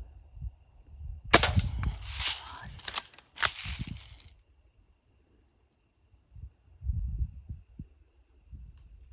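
Two sharp shots from a small gun, about two seconds apart.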